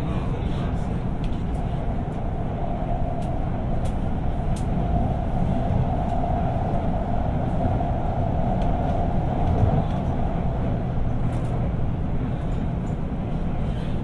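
Guangzhou Metro B2-series subway car running, heard from inside the car: steady rumble of wheels on rail and running gear, with a humming tone that swells in the middle and fades again.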